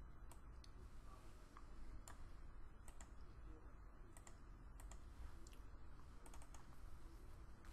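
Faint, sharp clicks of a computer mouse, about a dozen scattered over the seconds, some in quick pairs, over quiet room noise.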